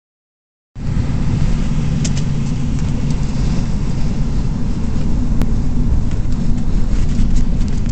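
Car driving down a road, heard from inside the cabin: a steady low rumble of engine and road noise that starts about a second in.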